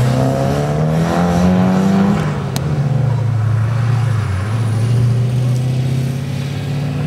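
Modified early Toyota Corolla's engine revving hard through a turn, its pitch rising for about two seconds, then dropping back and holding steady as the car pulls away.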